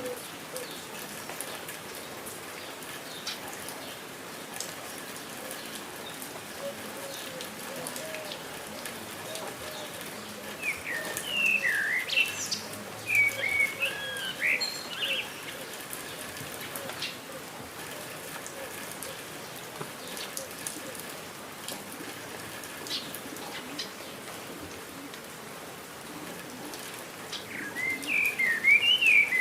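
Steady patter of water, like rain, with birds singing over it. A run of warbling, swooping chirps comes about eleven seconds in and lasts a few seconds, and another comes near the end.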